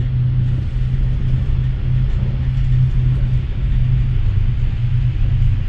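Steady low rumble and hum inside a small cable car cabin as it rides up its cable.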